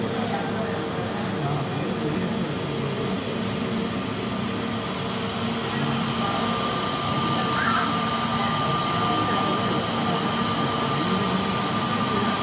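Jet airliner's engines running at taxi power as it rolls onto the stand: a steady rush with a held whine. A higher whine joins about halfway through and the sound grows slightly louder as the aircraft nears.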